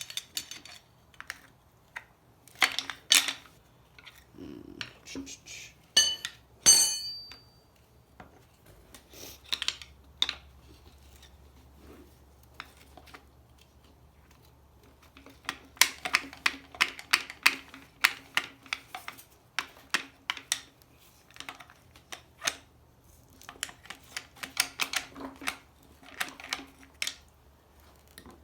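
Screwdriver prying and scraping at a stuck neutral safety switch on an AW4 automatic transmission's shaft: irregular metal clicks and scrapes in clusters, with one ringing metal clank about six to seven seconds in.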